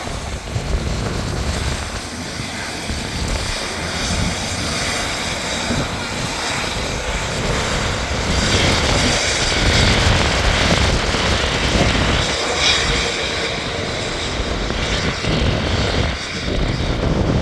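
Airbus A350-900 jet engines (Rolls-Royce Trent XWB) running with a steady rush that swells louder about halfway through, with gusty wind buffeting the microphone.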